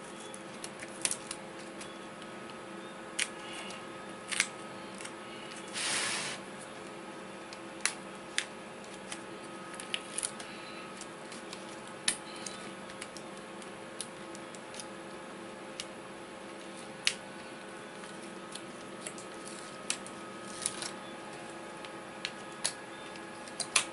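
Scattered clicks and taps of plastic and metal as a laptop keyboard is worked out of its metal-backed top case, with one short scraping rustle about six seconds in. A steady low hum runs underneath.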